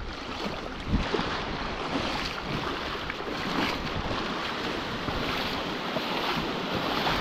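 Wind-driven waves lapping and splashing in the shallows, with wind buffeting the microphone, and a single light knock about a second in.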